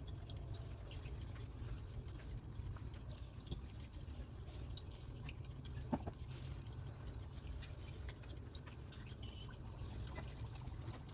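Water trickling and dripping in a hot-spring ambience recording, with scattered small drips and splashes. A single sharp knock about halfway through.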